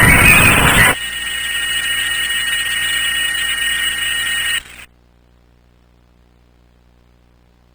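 Loud harsh noise stops about a second in, giving way to a steady high-pitched electronic tone that cuts off suddenly a little past halfway, leaving a faint low hum.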